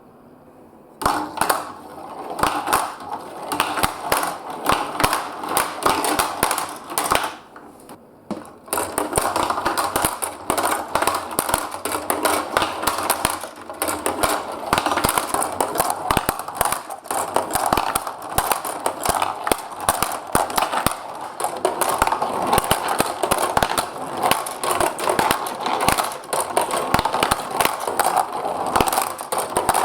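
Many marbles rolling and clattering down a block marble run, a dense stream of rapid clicks over a rolling rumble. It starts about a second in, eases briefly around eight seconds, then keeps going busily.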